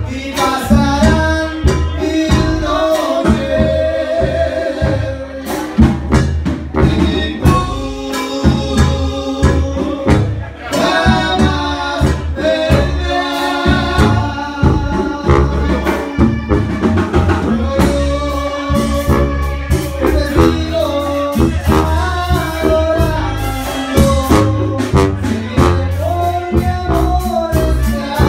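A man singing into a handheld microphone, holding long wavering notes over loud backing music with drums.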